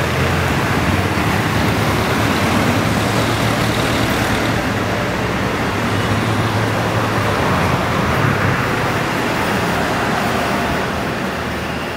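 Steady street traffic noise with a low engine rumble from vehicles.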